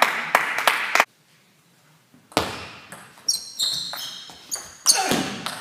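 Celluloid-type table tennis ball being struck back and forth in a rally, sharp clicks of bat hits and table bounces every half second or so, echoing in a large hall. About a second in, the sound cuts to dead silence for over a second before the rally clicks begin.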